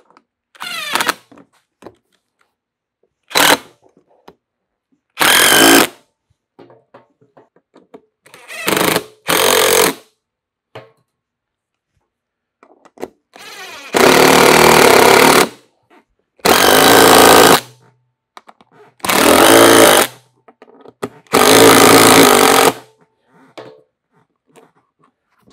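DeWalt 20V MAX DCF787 cordless impact driver hammering screws into the plastic seat shell to fasten an armrest. It runs in a series of separate bursts: several short ones at first, then four longer bursts of steady impacting of about a second or more each in the second half.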